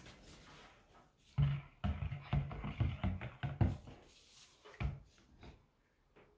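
A run of dull knocks and clatters as a stick blender is handled and set down into a plastic mixing bowl of soap-making oils, its metal head bumping the bowl. The knocks come in a quick cluster about a second and a half in, with one more near five seconds.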